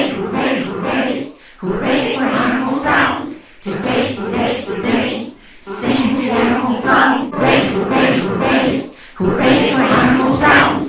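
Voices singing a children's song together in short phrases, with brief pauses between them.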